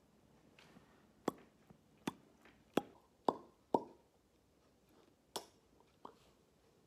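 Lips smacking in a quick series of about seven sharp, wet pops, the later ones more spaced out.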